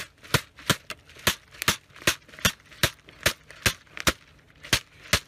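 A plastic water bottle striking a rifle-mounted laser sight over and over, sharp knocks at about two or three a second. It is a shock test to see whether the laser and its mount survive being beaten.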